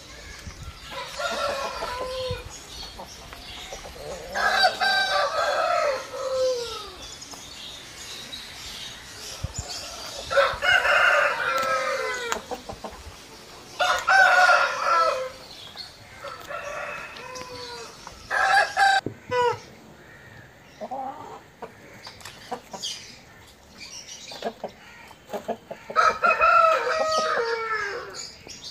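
Roosters crowing again and again: about six long crows spread through, each dropping in pitch at its tail.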